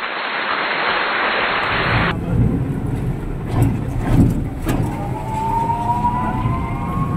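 Tap water splashing hard into a plastic bucket for about two seconds, cut off suddenly. Then the low rumble and rattling knocks of a rickshaw ride, with steady high tones coming in about five seconds in.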